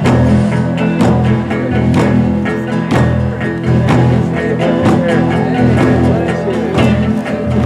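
Instrumental break of a worship song: guitar and other sustained instruments over a steady beat on a large pow wow drum, struck about once a second.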